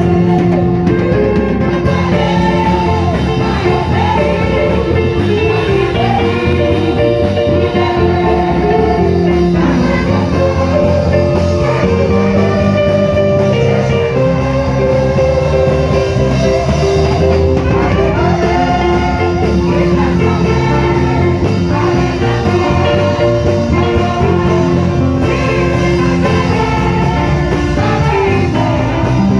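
Live gospel music played through loudspeakers: singing over a steady guitar-led accompaniment.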